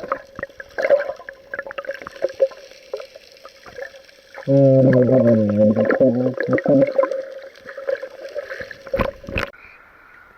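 Water sloshing and gurgling against an action camera's waterproof housing at the surface, full of scattered small clicks and crackles over a steady hum. A muffled voice comes through for a couple of seconds about four and a half seconds in, and a sharp knock on the housing sounds about nine seconds in.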